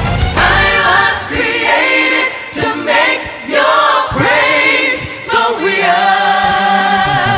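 Background music of several voices singing together in a choir style, with held notes that waver in pitch.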